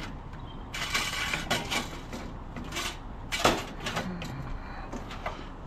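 Metal scrap pieces clanking and rattling as they are handled and set onto a loaded scrap trailer: a run of separate knocks, with a longer rattle about a second in and the loudest clank about three and a half seconds in.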